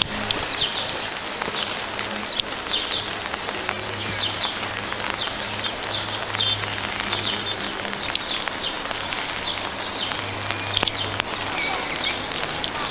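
Small birds chirping over and over over a steady outdoor background, with a low steady hum underneath.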